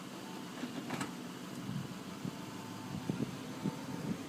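Lexus SC430's V8 idling after a remote start, with the power convertible top's mechanism running and a few light clunks as the roof folds away.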